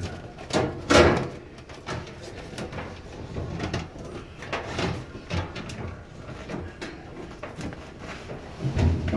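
Irregular knocks, scrapes and rustling of hands working behind a gas dryer to disconnect it, the loudest knock about a second in.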